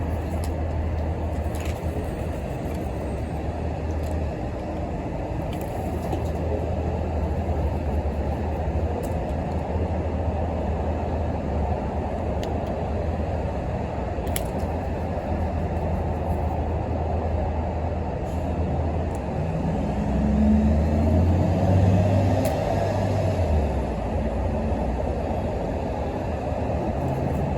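Steady low traffic or engine rumble, swelling for a few seconds near the end as a heavier vehicle goes by.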